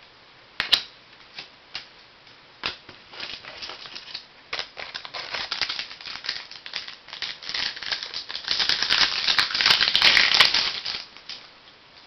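Wrapper of a pack of trading cards being torn open and crinkled. A few sharp clicks come first, then the crinkling grows denser and louder, peaks about two-thirds of the way through, and stops shortly before the end.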